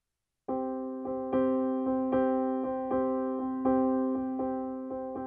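Background music on an electric piano or piano, starting suddenly about half a second in: a gentle repeating pattern of sustained notes struck about two and a half times a second.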